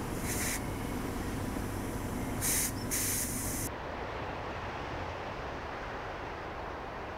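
Steady outdoor ambient noise: a rumbling hiss with three brief louder hissing swells in the first half, the high hiss dropping away at about four seconds.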